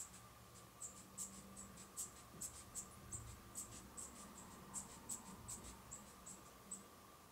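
Faint, irregular high-pitched clicking, about three or four clicks a second, over a faint steady hum.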